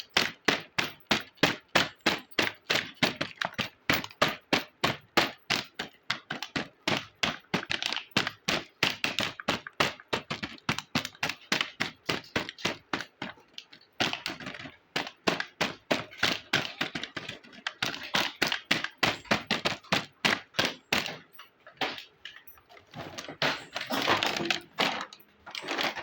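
Small plastic miniature toy kitchen pieces clicking and tapping as they are handled and set down, a quick run of about three taps a second, with a brief pause about halfway through.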